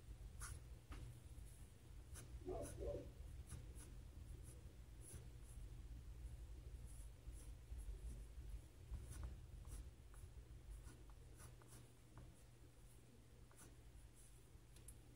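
Colored pencil scratching faintly on sketchbook paper in quick, loose strokes, with scattered light ticks, over a low steady hum. A short faint whine sounds about three seconds in.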